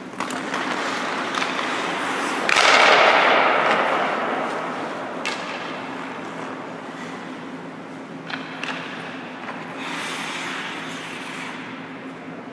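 Hockey skates scraping and carving on rink ice, with a loud skidding scrape about two and a half seconds in that fades away. Sharp clacks of stick and puck follow a few seconds apart, over a faint steady hum.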